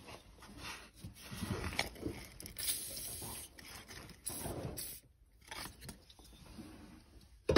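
Irregular rubbing and scraping handling noise from the phone being moved around in the engine bay, ending in one sharp knock near the end.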